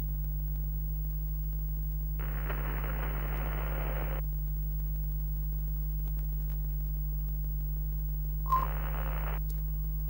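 Retro TV-style sound effect: a steady electrical hum with two bursts of crackly static, the first about two seconds long starting two seconds in, the second shorter and opening with a sharp click near the end.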